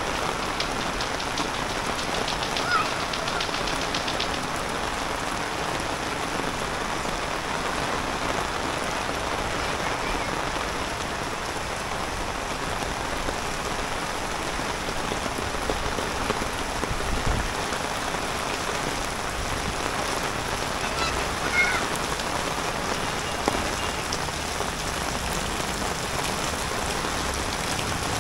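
Steady rain falling, a continuous even hiss of rain on surfaces, with a couple of faint short squeaks.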